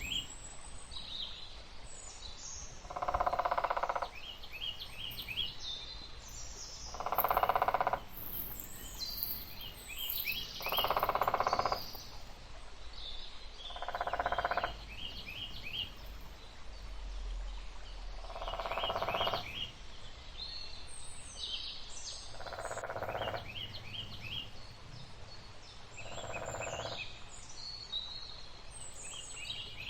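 Forest ambience: small birds chirping in short trills, with a lower, longer sound repeating about every four seconds.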